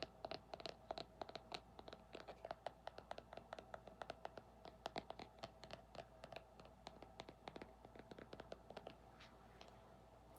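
Faint ASMR tapping and scratching with fingernails on an object: quick, light, irregular taps, several a second, that die away about a second before the end.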